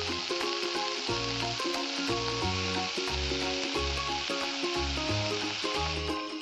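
Fresh chocolateweed leaves sizzling steadily in hot oil in a wok, with the sizzle stopping shortly before the end. Background music with a bass line and melody plays throughout.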